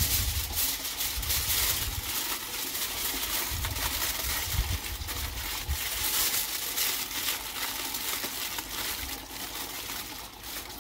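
Aluminium foil crinkling and crackling as it is folded and pressed by hand around a pork belly in a double wrap.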